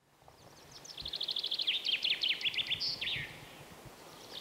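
A songbird singing outdoors: a fast trill of quick, high, downward-sweeping notes that ends in a falling slur about three seconds in, with a second song phrase starting near the end.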